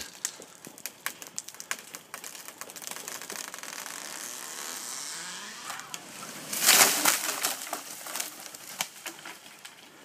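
A large tree giving way: its hinge wood cracks and snaps in a run of sharp pops as the trunk tips over, then a loud crash about seven seconds in as the trunk and crown hit the ground, followed by scattered cracking of branches.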